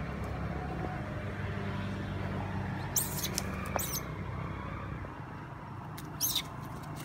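Young long-tailed macaques giving short, very high-pitched squeals: two about three seconds in and another near the end, over a low steady rumble.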